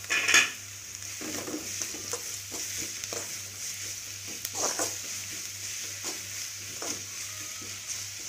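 Sliced onions frying in oil in an aluminium kadai, a steady sizzle, while a metal spatula stirs them, scraping and knocking against the pan about once a second, most sharply just after the start.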